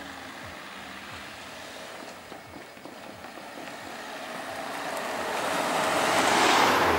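A car drives past close by, its tyre and engine noise swelling to a peak near the end and then starting to fall away.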